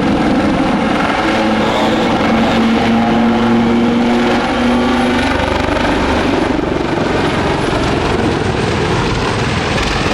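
Wildcat military helicopters flying close by, their rotors and turboshaft engines making a loud, steady noise. A steady hum over it stops about five seconds in.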